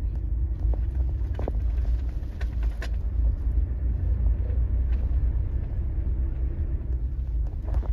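Vehicle driving along, a steady low rumble of engine and road noise, with a few light knocks.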